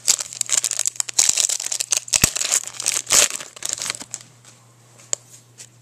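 Foil wrapper of a 2005 Finest football card pack being torn open and crumpled by hand: a dense run of crinkling and crackling for about four seconds, then a few faint clicks.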